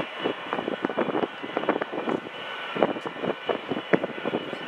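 Boeing 727-200F freighter's Pratt & Whitney JT8D jet engines running at taxi, a steady distant whine. Irregular short thumps and crackles sit over it throughout.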